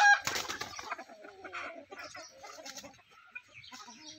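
A flock of desi chickens clucking: one short loud call at the start, then scattered clucks that thin out and fade.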